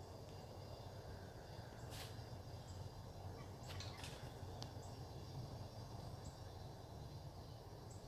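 Faint outdoor ambience: a low wind rumble under a steady high insect hum, with a few short high chirps and sharp clicks, the loudest about two seconds in and a small cluster around four seconds.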